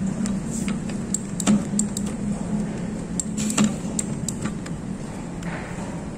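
Metal clicks and clinks as the steel lever arms and hub of a milling machine's quill feed lever are fitted back on by hand, with two louder knocks about one and a half and three and a half seconds in. A steady low hum runs underneath.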